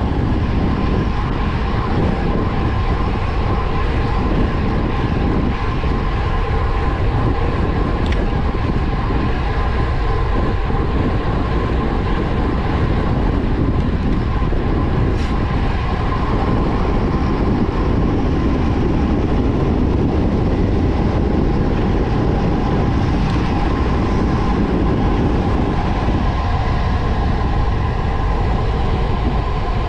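Wind rushing over the microphone and road-bike tyres rolling on asphalt at descending speed: a loud, steady rush with a faint steady hum in it.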